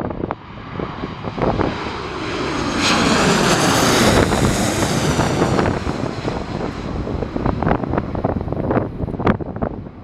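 Boeing 737-800's twin turbofan engines passing low overhead on landing approach: the jet noise swells to a peak about four seconds in, with the engine whine falling in pitch as it goes by, then fades. Gusts of wind buffet the microphone near the end.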